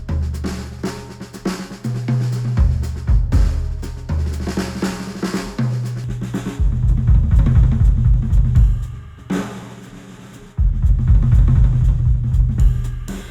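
Instrumental music with a full drum kit (kick, snare, hi-hat) and heavy bass, played back through studio headphones and picked up by microphones. The beat thins out about nine seconds in, then the full drums and bass come back at about ten and a half seconds.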